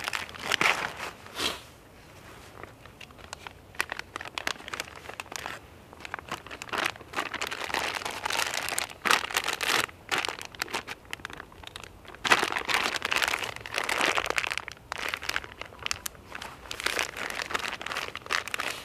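Clear plastic bag crinkling and rustling as it is folded and handled by hand, in irregular bursts that grow louder for a while about eight seconds in and again around twelve to fourteen seconds.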